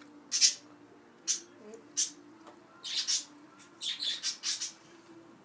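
Budgerigar chattering in a string of short, scratchy chirps, irregularly spaced and bunched together near the end.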